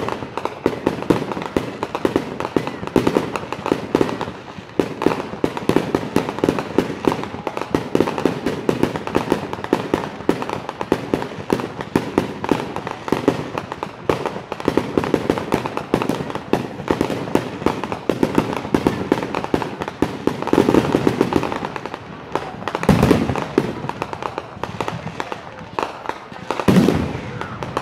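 Aerial fireworks going off in a rapid, continuous barrage of bangs and crackles. Over the last several seconds it thins out to a few separate, louder booms.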